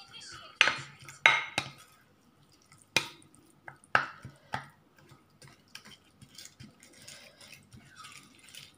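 Green silicone spatula stirring a minced pork and vegetable mixture in a bowl. In the first few seconds it knocks sharply against the bowl about six times, then settles into softer scraping and light ticks.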